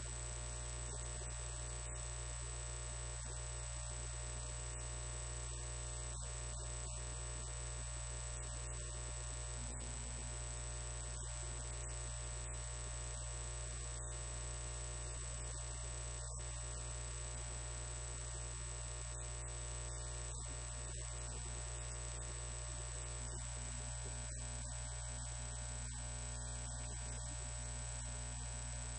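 Steady low electrical hum with a thin, high-pitched whine held at one pitch above it, unchanging throughout; no speech or other events.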